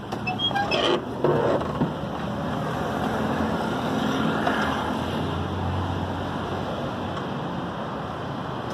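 A vehicle engine running steadily, after a few knocks and clatters in the first second or so.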